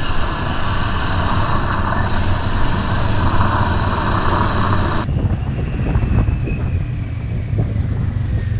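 Motorcycle riding at speed, heard through an onboard camera: wind rushing over the microphone together with the engine's steady drone. About five seconds in the sound cuts abruptly to another ride, where a lower engine rumble with less wind takes over.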